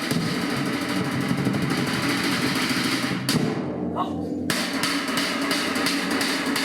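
Background music with drums and guitar and a steady beat; a little past halfway the treble drops out for about a second before the full mix returns.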